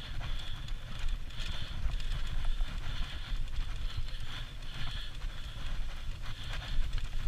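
Three-wheeled dog-mushing cart rolling over a dirt track: a steady low rumble from the wheels with light rattling and clicking from the rig.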